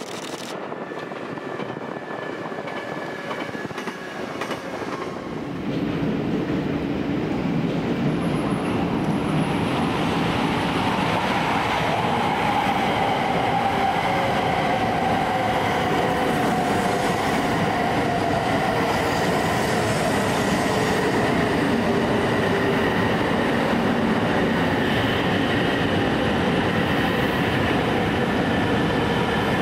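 Train running on the rails, getting louder about six seconds in and then staying loud, with steady high tones over the rumble, the lower one sliding slowly lower.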